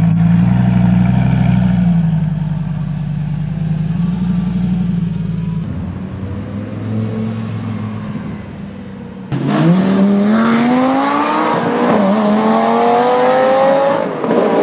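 Lamborghini Gallardo V10 idling steadily, then, after a sudden cut about two-thirds in, accelerating hard: the engine note rises, drops briefly at a gear change, and rises again.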